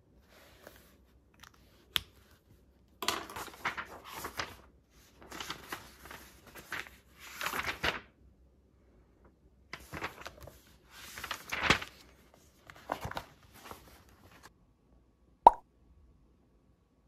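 Bursts of crinkling, crunching noise from something being handled, in four clusters of a second or two each, with a sharp click about two seconds in and a louder click near the end.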